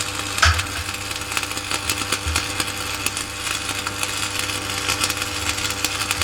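Steady mechanical running noise of workshop machinery, with a low hum and a couple of dull knocks about half a second in and a little after two seconds.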